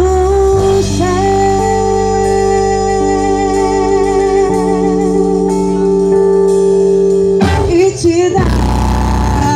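Live band playing a slow song: horns, saxophone and keyboard hold a long sustained chord with a wavering note on top. Near the end the chord releases and a new phrase begins.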